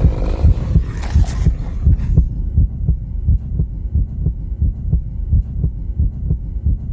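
Heartbeat sound effect from a dark-ride horror soundtrack: steady, evenly paced, low pulsing thumps.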